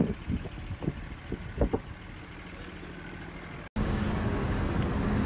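Vehicle engine sounds in the open, with a few brief knocks in the first two seconds. About three and a half seconds in the sound breaks off abruptly, then a louder steady engine hum with wind on the microphone.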